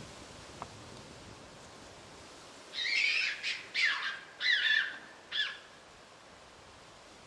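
A wild animal calling: a quick series of about five harsh calls, some sliding down in pitch, starting about three seconds in.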